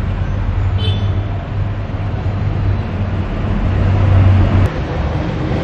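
Town traffic: a nearby vehicle engine runs with a steady low hum over road noise, and it stops abruptly near the end.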